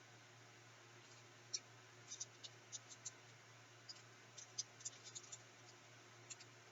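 Faint wet mouth clicks and smacks from someone sucking a hard-candy lollipop: about fifteen short ticks scattered through the middle few seconds, over a steady low hum.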